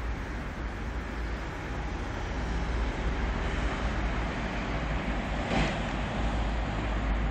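Steady distant road traffic noise: a low rumble and hiss with no distinct events, and a brief louder swell of hiss about five and a half seconds in.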